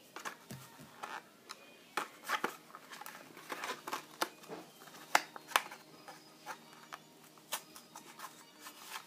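A Hot Wheels blister pack being pried and torn open by hand. Irregular sharp clicks and crackles of stiff plastic and cardboard.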